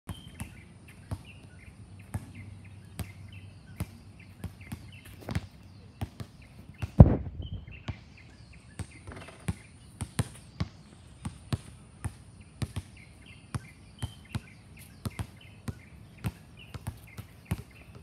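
Basketballs bouncing on a court: irregular sharp thumps, several a second at times, with one much louder bang about seven seconds in.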